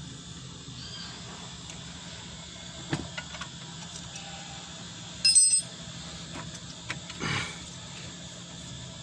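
Metal-on-metal clinks from tools and brake caliper parts being handled: a few light taps, then one sharp clink with a brief ring about five seconds in, and a short scrape soon after.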